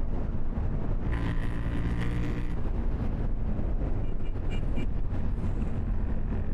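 KTM 790 Duke's parallel-twin engine running steadily while the motorcycle is ridden, with wind noise on the microphone.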